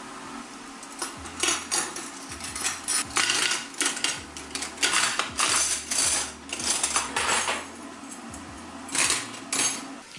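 Stainless-steel cutlery clattering and clinking as spoons and knives are laid, a few at a time, into glass baking dishes of vinegar and baking-soda solution to soak. The metal knocks on the glass and on the other pieces in quick runs of clinks.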